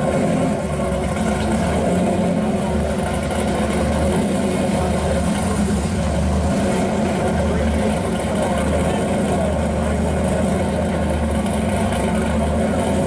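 Hot-rod car engines running at a slow roll, led by a pro-street Chevy II Nova, with a steady loud exhaust note and an uneven low pulsing. A red three-window coupe hot rod with an exposed engine passes close by partway through.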